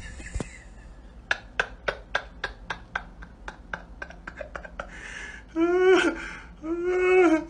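A dog gives two drawn-out, wavering vocal calls near the end, the dog's protest at being laughed at. Before them comes a run of light, even clicks, about four a second.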